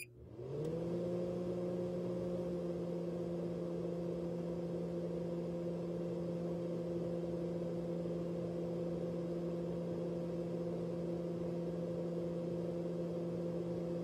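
Microwave oven switching on and running: a steady hum that rises briefly in pitch as it starts, then holds level.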